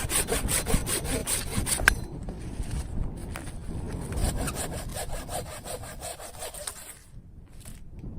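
Hand saw cutting through wood in quick, even rasping strokes, about four or five a second. The strokes grow fainter after about two seconds and stop about seven seconds in.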